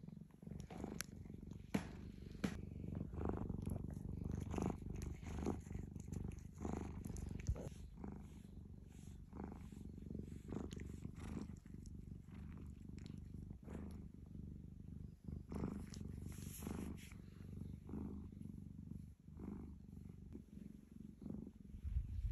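Orange-and-white Korean shorthair cat purring steadily, with short wet sucking clicks every second or so as it suckles on its own paw.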